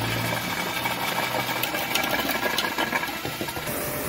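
Hand-held electric drill with a mixing paddle churning mortar in a bucket, its motor running steadily with a few sharp clicks. Near the end it gives way to the hiss of a pressure washer spraying.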